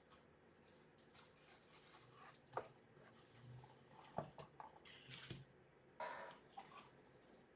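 Faint handling sounds of a keyboard PCB being taken out of its packaging: scattered light taps and clicks with a few short rustles, the clearest about three, five and six seconds in.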